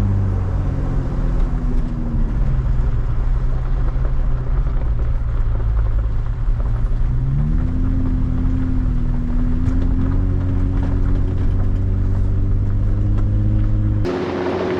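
A Jeep's engine running steadily while driving, with tyre and road rumble. About seven seconds in, the engine pitch rises as it speeds up, then holds.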